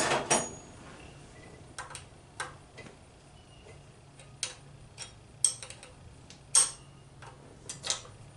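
Hand wrench clicking and ticking against the metal fittings of a carburetor as its nuts are loosened: scattered short metallic clicks at an uneven pace, with a few louder ones in the second half.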